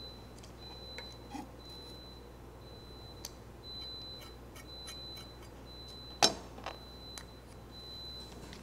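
Light clicks and taps of kitchen prep: minced garlic scraped off a chef's knife into a small plastic cup and the cup handled on a plastic cutting board and metal tray. One sharp knock about six seconds in is the loudest sound, with a softer one just after.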